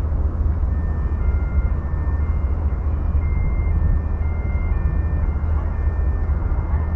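Wind buffeting the microphone in a steady low rumble, with soft background music of held high notes at changing pitches over it.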